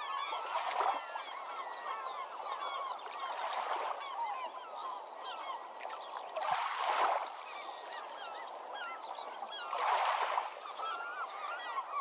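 A dense chorus of many birds calling at once, short overlapping calls packed close together. A swell of rushing noise comes about every three seconds.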